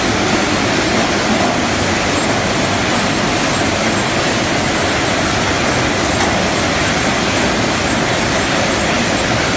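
Poultry processing line running: the overhead shackle conveyor and rotary carousel machines make a loud, steady mechanical din.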